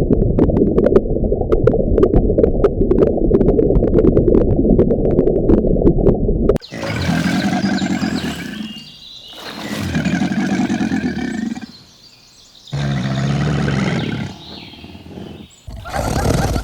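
Big cat calling: about six seconds of a deep, rough, muffled growl, then after a sudden cut three long roars that each rise and fall, with short gaps between them.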